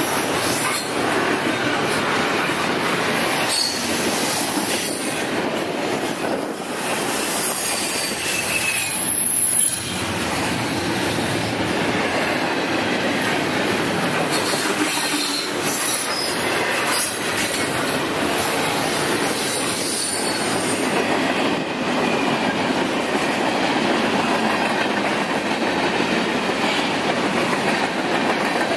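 Freight cars rolling past close by: double-stack container well cars, then covered hoppers. Their steel wheels make a steady clattering on the rails, with short high-pitched wheel squeals now and then.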